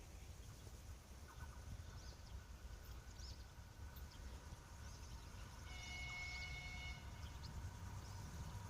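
Faint, steady low rumble of a 2TE116 diesel locomotive and its train in the distance, with small birds chirping. A brief steady high tone sounds for about a second near the middle.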